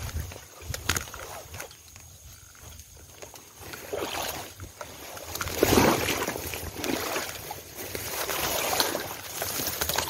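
Bamboo leaves and twigs rustling and crackling as snake tongs and a hand push through a dense bamboo clump. The rustling is quieter in the first few seconds and loudest about six seconds in.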